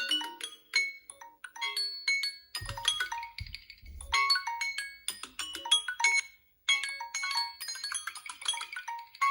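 Smartphone alarm tone: a bright, marimba-like melody of short plucked notes repeating in a quick rhythm, with a brief break about two-thirds through before it starts again. A short low hum sounds underneath about a third of the way in.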